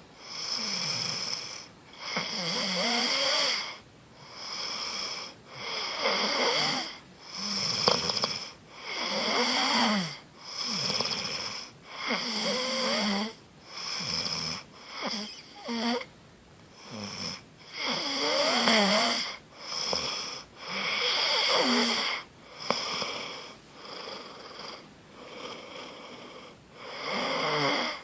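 A person snoring: a rough, wheezy snore on each breath, about one every one and a half seconds, with a wavering pitch. The snores soften for a few seconds near the end, then come back loud.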